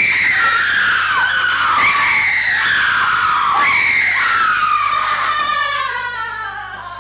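A woman screaming in three long, high-pitched cries, each sliding down in pitch, the last one trailing off near the end.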